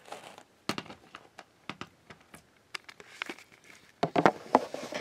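Plastic DVD case being handled and moved: a run of small clicks and taps, then a louder cluster of knocks near the end as the case is stood upright against the wall.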